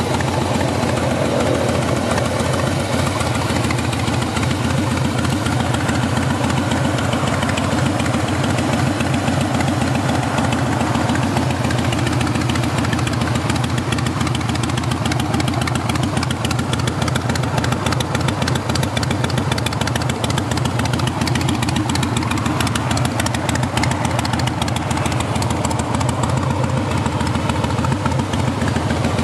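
Harley-Davidson Softail Slim's V-twin idling steadily through a Bassani aftermarket exhaust.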